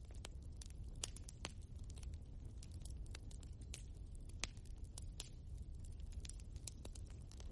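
Wood fire in a fireplace crackling: irregular sharp snaps and pops of burning logs over a steady low rumble of flame, with one louder pop about halfway through.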